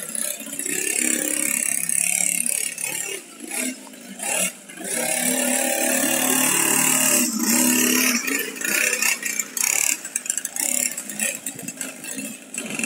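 Small engine of a child's mini dirt bike running while ridden, its revs rising and falling with the throttle and holding high for a few seconds near the middle.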